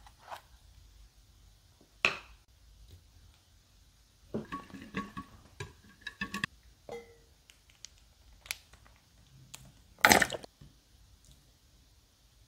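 Wire whisk mixing batter in a glass dish, clinking against the glass in a run of ringing taps a few seconds in. A few sharper knocks are scattered around them, the loudest one near the end.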